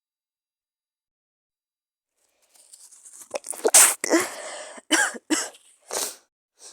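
A sick person coughing: a breath in about two and a half seconds in, then a run of loud coughs, the loudest about a second later and the last one faint.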